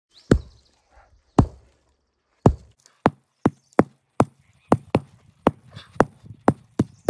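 Hammer blows: three slow strikes, then a steady quicker run of about two to three sharp strikes a second.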